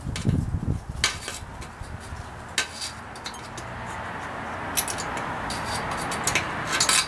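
A thin metal rod scraping and clinking in a small cut hole in a steel water expansion tank: a few sharp metallic clicks, the last ones bunched together near the end. Low knocks of the tank being handled come at the start, and a steady hiss builds from about halfway.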